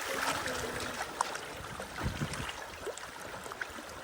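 River water rushing past a bamboo raft, with many small splashes and gurgles against the raft.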